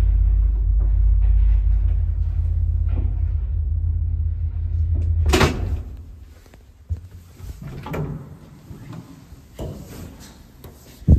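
ZREMB lift running with a steady low hum that stops with a loud clunk about five seconds in. Light knocks and clicks follow, then a sharp bang near the end as the hinged landing door is pushed open by hand.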